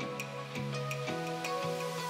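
Background music: soft, steady instrumental with held notes and a light ticking beat of about four strikes a second.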